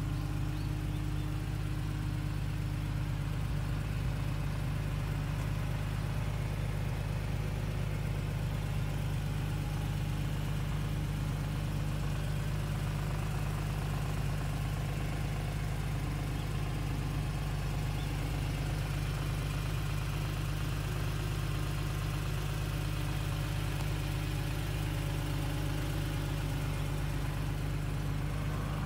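Honda NSX's C30A 3.0-litre V6 idling steadily, an even low hum with no revving.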